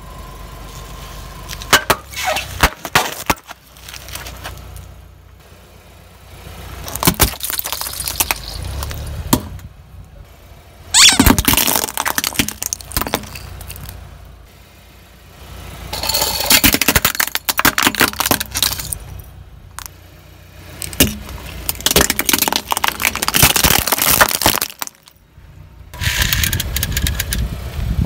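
A car tyre rolling over and crushing objects, with about six bursts of cracking and crunching, each lasting one to three seconds, over the low rumble of the car's engine.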